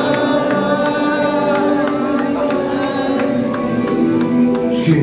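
Church worship music: long held chords over a steady tick about four times a second, with voices singing.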